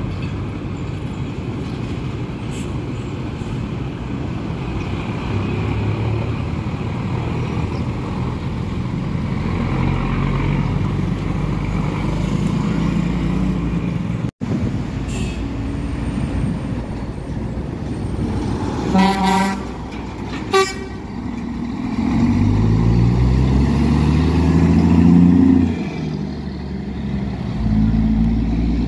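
Heavy truck engines running in street traffic. About two-thirds of the way in, a vehicle horn gives a half-second blast and then a short toot. A truck engine then revs up, rising in pitch for a few seconds as it accelerates.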